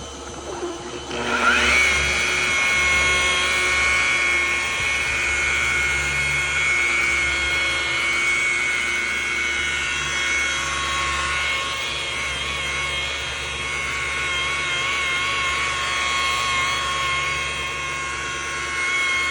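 Electric polishing machine spinning up about a second in, then running with a steady high whine while buffing carnauba wax onto a restored plastic headlight lens.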